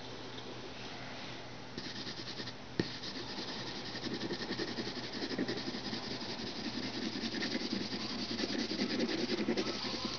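Mechanical pencil scratching and rubbing on drawing paper in quick shading strokes. It starts about two seconds in, with a single click near three seconds, and grows fuller and louder from about four seconds on.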